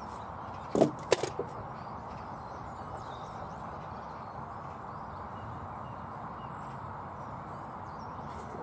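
A few sharp wooden knocks about a second in as a cordless drill and a timber lath are set down on the plank floor, then only a steady background noise.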